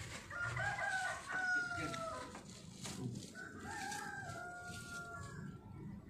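A rooster crowing twice, each a long crow of about two seconds whose pitch sags at the end, the second starting about a second after the first ends.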